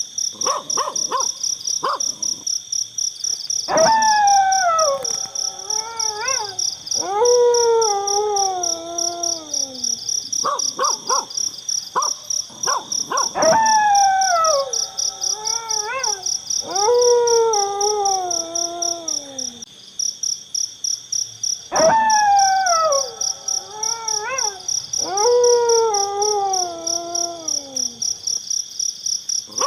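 Falling, howl-like cries, each about a second long, in groups of four that come back about every nine seconds, over a steady pulsing chorus of crickets or other night insects.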